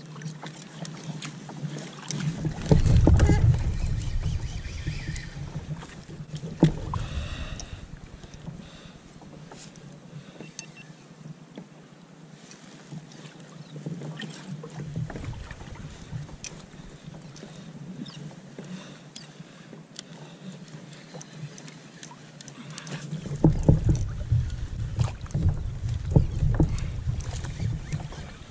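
Wind buffeting the microphone in two spells, starting about two seconds in and again after about twenty-three seconds, over water sounds around a kayak. Scattered small clicks and knocks come from a spinning reel being cranked and from the gear as the angler fights a fish.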